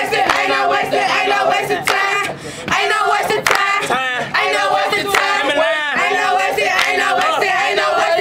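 A group of young voices singing together over a steady clapped beat.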